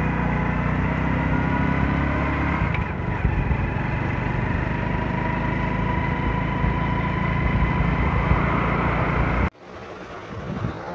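Engine and road noise of a moving vehicle, heard on board while riding along a road, steady and loud. It cuts off abruptly about nine and a half seconds in, giving way to much quieter room sound.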